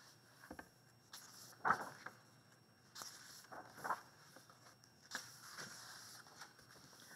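Soft paper rustles as the large pages of a hardcover picture book are turned and smoothed down by hand, a few brief swishes, the loudest about two seconds in.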